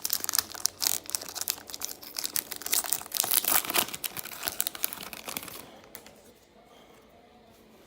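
A trading card pack's wrapper being torn open and crinkled by hand, a dense run of crinkling that stops about five and a half seconds in.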